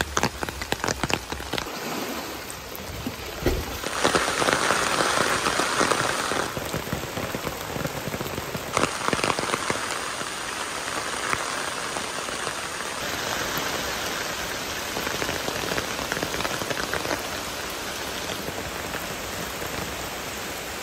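Heavy rain falling on the water of a pond, a dense even hiss with sharp drip ticks near the start. It changes abruptly in loudness and tone several times.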